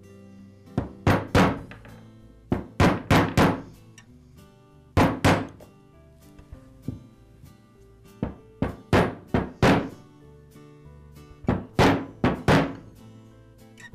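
Shop mallet tapping a steel socket to drive a new crankshaft oil seal into a trimmer's aluminium crankcase half: sharp taps in short bursts of two to four, a few tenths of a second apart, with a short ring after each. Background music plays underneath.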